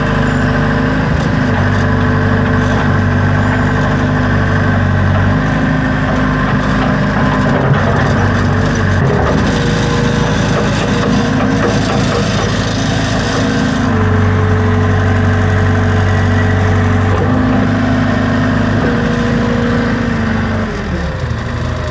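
Backhoe engine running under hydraulic load as the arm is worked, its tone stepping up and down several times as the hydraulics load and unload. It drops back to a lower, quieter running speed near the end.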